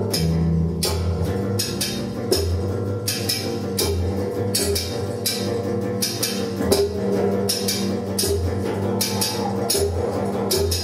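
Live experimental ensemble music: a held low drone and sustained notes under a steady run of sharp percussive hits.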